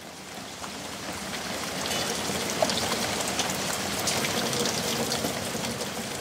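Steady rain falling, with many small drop ticks over a continuous hiss, fading in over the first couple of seconds.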